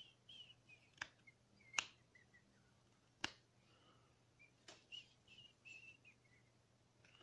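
Whittling knife cutting a small wooden figure: a few sharp clicks as the blade cuts through the wood, with short high squeaks in between. Quiet, over a faint steady hum.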